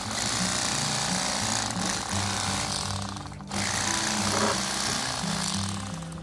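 Bubba Blade cordless lithium electric fillet knife running, its 9-inch flex blades buzzing as they saw through a white bass fillet. The motor drops out briefly about three seconds in, then runs on.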